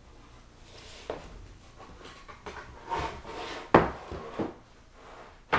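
Pine boards being slid, lifted and flipped over on a wood floor: scraping between several wooden knocks, the loudest about three and three-quarter seconds in and another at the very end.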